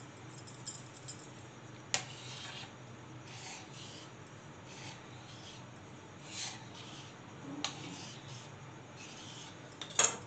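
Kitchen knife drawn through rolled-out paratha dough onto a wooden tabletop: a series of short, faint scraping strokes as the sheet is cut into strips. A sharp click comes about two seconds in and a louder knock just before the end.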